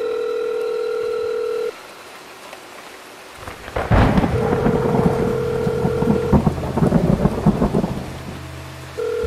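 Rain with a loud thunderclap about four seconds in that rumbles and crackles on for several seconds. A steady electronic tone sounds at the start and again briefly during the rumble.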